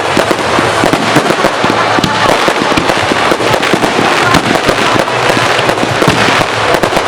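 Fireworks going off in a dense, continuous barrage of bangs and crackling, many reports a second with no let-up.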